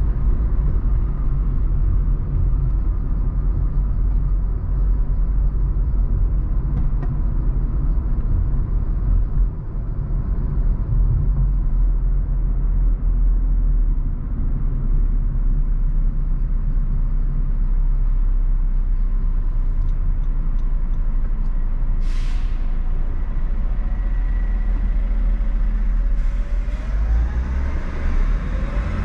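Steady low rumble of a car driving through city traffic, with a short hiss about three-quarters of the way through and a faint rising whine near the end.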